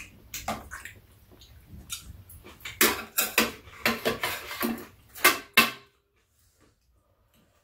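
Metal spoons clinking and scraping against ceramic bowls during a meal, with eating sounds, in a quick irregular run of clicks that is busiest in the middle and stops about six seconds in.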